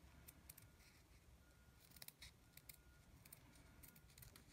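Small scissors cutting through fabric ribbon to trim the ends of a bow: a series of faint, short snips in small clusters.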